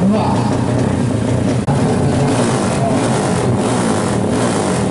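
Drag-race motorcycle engines revving and accelerating hard, surging louder in the second half.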